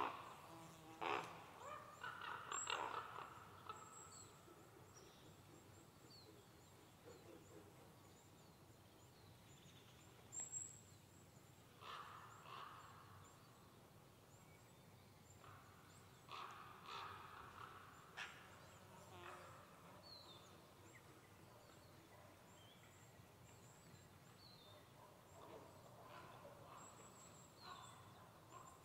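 Crows cawing in about four short series of harsh calls, near the start, around the middle and near the end, against a quiet background.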